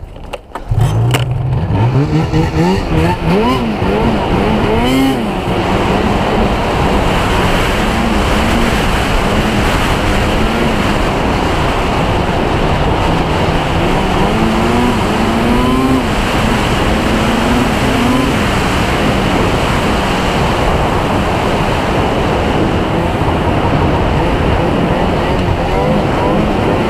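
Speedwerx-supercharged Arctic Cat M8000 snowmobile's two-stroke twin engine running under throttle, loud and steady, its pitch rising and falling as the rider accelerates and eases off.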